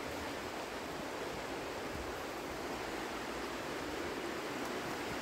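A river rushing, a steady, even rush of flowing water.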